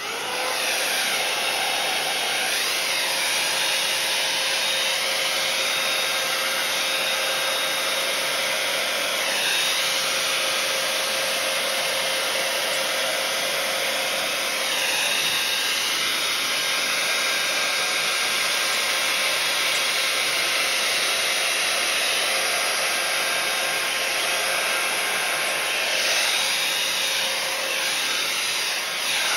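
Hair dryer switched on right at the start and running steadily on high with cool air, blowing wet acrylic paint across a canvas in a Dutch pour; the hiss shifts slowly now and then as the dryer is swept about.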